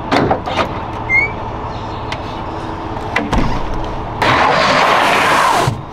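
Knocks and thumps of gear being handled at a pickup truck's bed, then a harsher rushing, scraping noise for about a second and a half starting about four seconds in.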